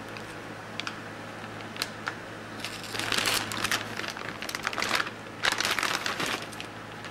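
Anti-static plastic bag crinkling as a motherboard is slid out of it: a few light clicks at first, then three loud bursts of crinkling over the second half.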